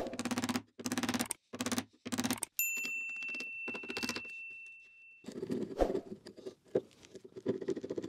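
A wood chisel cutting and paring the recess in a painted wooden door jamb: short, scratchy, crackling bursts as the blade chops and levers out waste, growing quieter and finer as it pares toward the end. About a third of the way in, a high steady chime rings for a few seconds.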